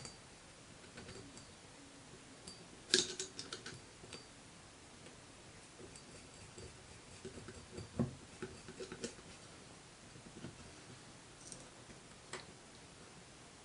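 Faint, scattered metallic clicks and light knocks of a cast flywheel being clamped by hand onto a lathe faceplate, its central bolt being turned and tightened. The loudest are a quick cluster of clicks about three seconds in and a single knock about eight seconds in.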